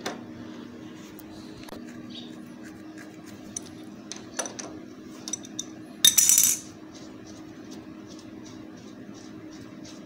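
Metal clinks of an adjustable wrench working a motorcycle's rear axle nut, scattered at first, with one louder metal clatter about six seconds in, then light, even ticks about two or three a second as the nut is turned by hand.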